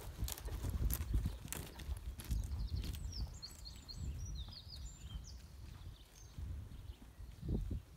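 Hoofbeats of a grey horse trotting on a loose-chipping arena surface. They are loudest at first and fade as the horse moves away.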